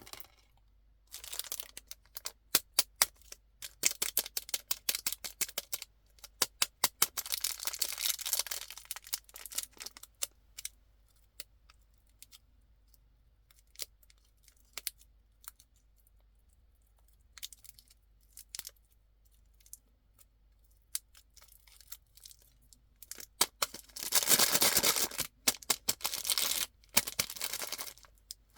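Packaged candy being handled and unwrapped: plastic and foil wrappers crinkling and tearing, with quick sharp crackles and clicks. Two longer spells of tearing, the louder one near the end, with quiet pauses between.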